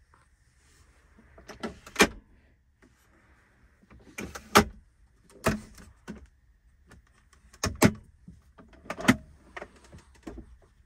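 Center console of a Toyota Tundra 1794 Edition being opened and worked by hand: the armrest lid and storage compartments unlatch and swing, giving five sharp clicks and knocks of plastic latches and lids, with faint rustle of handling between them.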